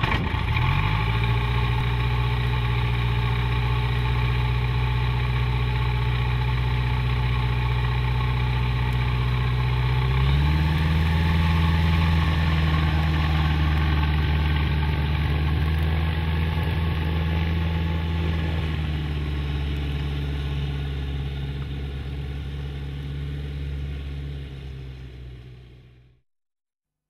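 Brumby 600 light aircraft's piston engine and propeller running steadily on the ground; the engine speed steps up about ten seconds in, then the sound fades out near the end.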